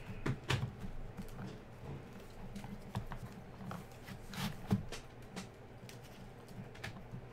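Trading cards and card packs handled on a tabletop: scattered light taps and rustles, with the sharpest taps about half a second in and again near the middle.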